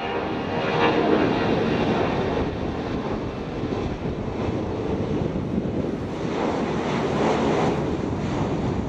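Jet roar from the four CFM56-5C turbofans of an Airbus A340-300 at climb thrust just after takeoff. It is a dense, steady rush that swells about a second in and again around six to seven seconds in.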